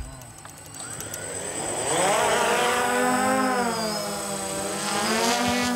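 Small quadcopter (DJI Phantom) spinning up its motors and lifting off. Its propeller whine rises about a second in, then wavers up and down in pitch as it climbs and holds position.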